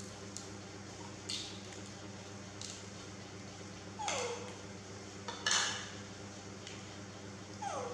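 Baby macaque giving short whimpering cries that fall in pitch, about four seconds in and again near the end, mixed with the crackle of a plastic jelly cup being handled and its lid peeled open, loudest about halfway through.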